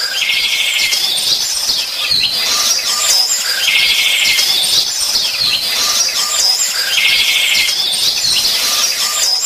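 Looped birdsong: high chirps and calls with a buzzy call in each pass, the same phrase repeating about every three and a half seconds.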